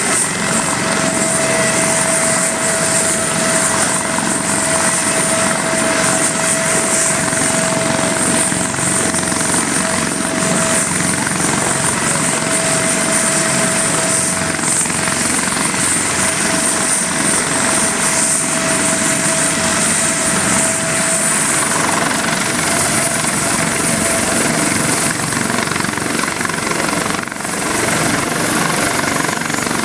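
A Eurocopter Dauphin air ambulance helicopter idles on its landing pad with its turbines running and its rotor turning: a loud, steady rotor noise with a turbine whine and a high whistle over it. Over the last several seconds the high whistle climbs slightly in pitch as the helicopter powers up for lift-off.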